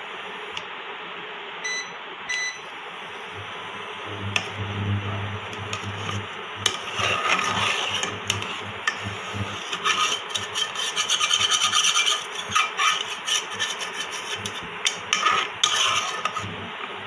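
A ladle scraping and rubbing against the bottom of a saucepan of boiling milk as it is stirred, in repeated irregular strokes starting about four seconds in, over a steady hiss. The milk is being boiled down and is stirred every little while to keep it from catching.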